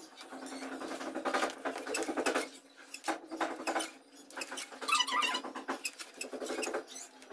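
Steel hand trowel scraping and smoothing wet cement mortar over a form, a scratchy, buzzy rasp in repeated strokes with short pauses between them.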